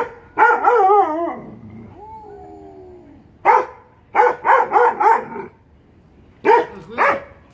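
A dog barking: a bark, then a wavering howl-like yowl, a faint whine, a quick run of barks starting about three and a half seconds in, and two more barks near the end.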